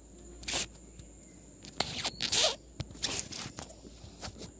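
A string of short, sharp rustling or hissing strokes at irregular intervals, with quiet between them.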